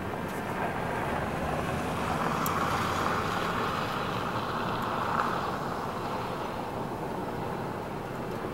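A vehicle passing on a nearby road: its tyre and road noise swells for a few seconds in the middle, then fades away.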